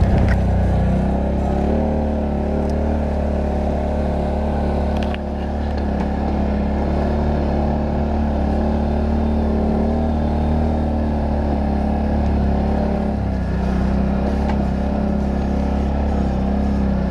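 ATV engine running steadily under way, heard close up from the handlebars, with small changes in engine speed around two seconds in and again near thirteen seconds.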